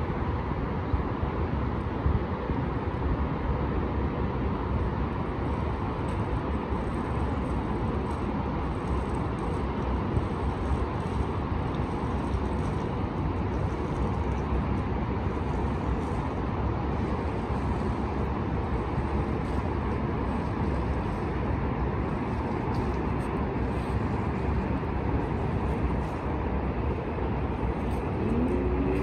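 Steady hum of highway traffic far below, an even wash of tyre and engine noise, with one vehicle's engine note rising near the end.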